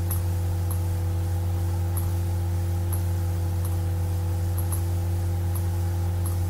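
Steady low electrical hum from the recording setup, with faint short clicks of a computer mouse about once a second as a shape is dragged and rotated.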